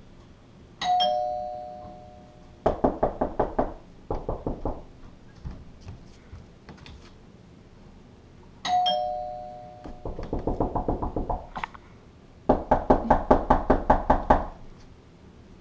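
Two-note ding-dong doorbell chime rings twice, each time followed by runs of rapid knocking on the front door.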